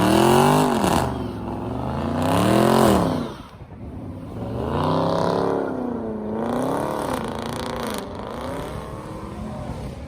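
Muscle car engine being revved hard several times, its pitch rising and falling in swells, the first two the loudest, then settling to a lower, quieter running note near the end.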